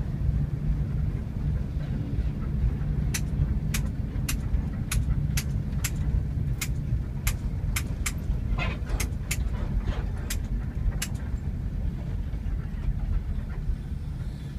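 Steady low rumble of a passenger bus's engine and road noise heard from inside the cabin. For several seconds in the middle there is a run of sharp clicks, about two a second.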